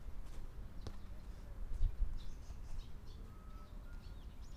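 Outdoor futsal-pitch ambience: birds chirping several times, a single sharp knock about a second in, and a brief low rumble just before two seconds in, with faint distant voices of players.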